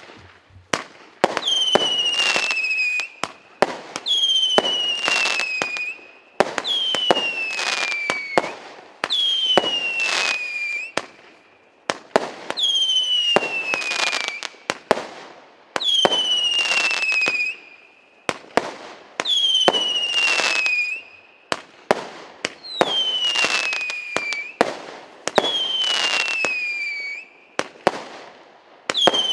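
Multi-shot firework battery (cake) firing in a steady sequence, about one shot every two and a half seconds. Each shot is a sharp pop followed by a whistle that falls slightly in pitch over about two seconds, with crackles and further pops.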